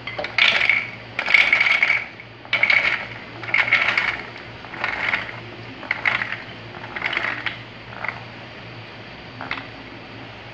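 Soaked chickpeas poured in batches into a plastic Kenwood food processor bowl, clattering against the plastic. There are about eight bursts a little over a second apart, and they grow fainter as the bowl fills.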